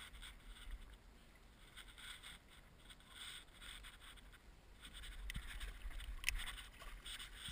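Soft water splashing and sloshing at the boat's side as a small white sturgeon thrashes at the surface while held on the line, over a low rumble. A sharp click about six seconds in.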